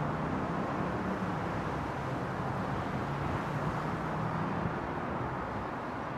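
Steady outdoor ambience: an even rush of noise with a faint low hum underneath, and no distinct events.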